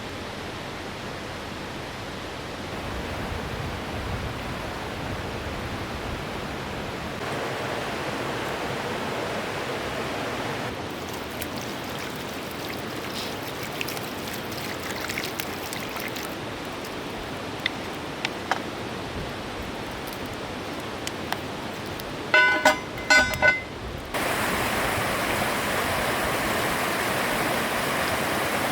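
Steady rushing of a mountain river's flowing water, its level and tone shifting several times. About three-quarters of the way in, a short burst of sharp, ringing high-pitched tones stands out loudest.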